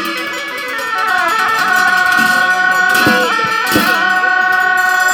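Music: a held melody line that steps between notes, with a couple of drum strokes.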